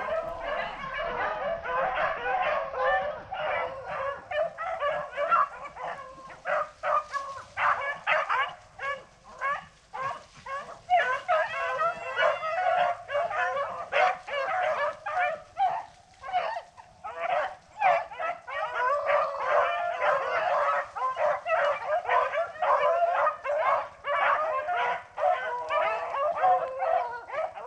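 A pack of rabbit-hunting dogs in full cry, many voices baying and yelping over one another without a break as they run a freshly jumped rabbit.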